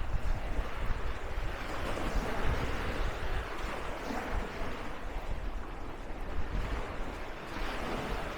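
Wind buffeting the microphone, a gusty low rumble, over the steady wash of surf on the beach.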